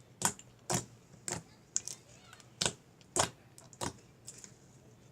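Slime being squeezed and poked, giving a series of sharp clicking pops at an uneven pace of about one or two a second as trapped air bursts.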